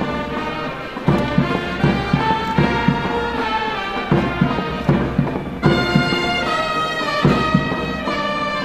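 Military brass band playing a slow ceremonial tune with held brass notes over steady drum beats, as a salute is taken.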